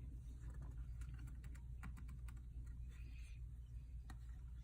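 Oracle cards being handled: a few light, scattered clicks and a soft sliding rustle of card stock, over a low steady hum.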